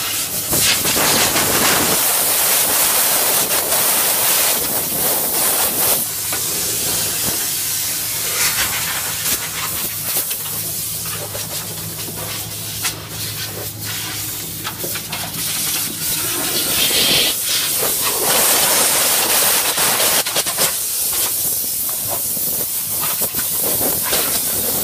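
Abrasive media-blasting nozzle hissing with high-pressure air, cutting out and starting again several times. A steady low hum runs underneath for several seconds in the middle.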